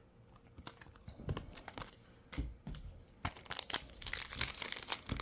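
Light clicks and rustles of trading cards being handled, then from about three to four seconds in, loud continuous crinkling of a foil booster-pack wrapper.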